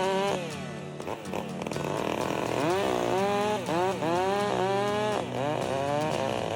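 Chainsaw revving. It drops off from full throttle just after the start, then is revved up again and again in quick blips in the second half, its pitch sweeping up and falling back each time.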